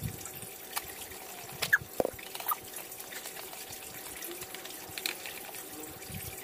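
A few light clicks and taps from hands working on a wooden speaker box with screwed-in drivers, spaced irregularly over a steady background hiss.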